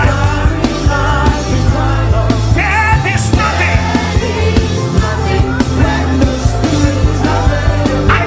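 Worship music: a band with bass and drums playing a steady beat, with a voice singing over it.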